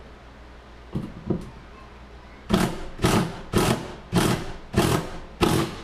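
Power driver tightening a lag bolt through a wall-mounting bracket into a stud, run in six short trigger bursts about half a second apart. Two light knocks come before it, about a second in.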